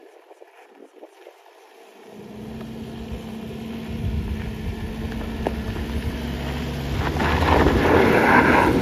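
Off-road 4x4's engine coming up in revs under load on a steep climb, getting louder. About seven seconds in it is joined by the rough noise of tyres spinning and digging into the loose ground.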